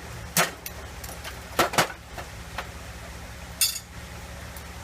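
Sharp metal-on-metal taps and clinks, about eight at irregular spacing, as the Chevy 350's thermostat or its housing is knocked loose; one ringing clink comes more than halfway through. A steady low hum runs underneath.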